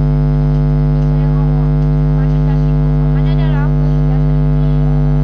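Loud, steady electrical hum with many overtones, unchanging throughout, with a faint voice under it a little past the middle.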